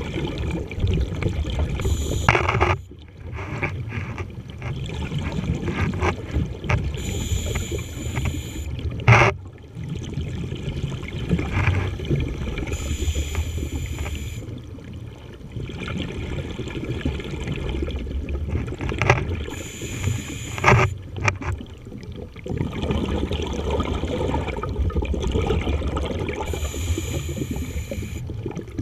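Scuba breathing heard underwater: a breath through the regulator about every six seconds, over a steady low rumble, with a few sharp clicks.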